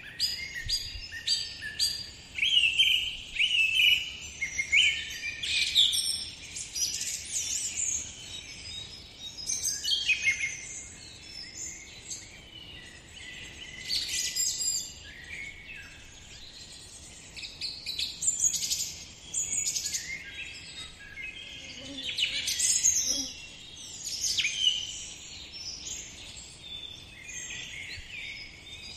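Several songbirds chirping and whistling in quick, overlapping phrases that come in clusters every few seconds over a faint steady background hiss.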